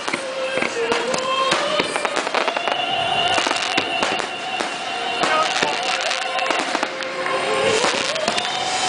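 Aerial fireworks display: a dense, continuous run of shell bursts and crackling, several bangs a second.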